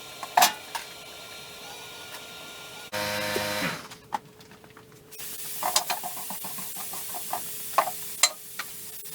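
Scattered sharp metal clicks and knocks of hand work on the compressor's engine over a low steady hiss, with most of the clicks coming in the second half.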